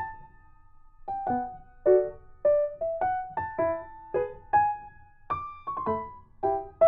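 Background piano music: a gentle melody of single struck notes that ring and fade, with a short pause near the start.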